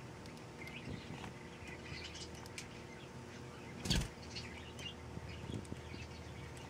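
Ring-necked dove pecking at a bowl of mashed hard-boiled egg and vegetables, its beak making light scattered clicks on the food and the glass bowl, with one loud knock about four seconds in. Faint brief high chirps come and go throughout.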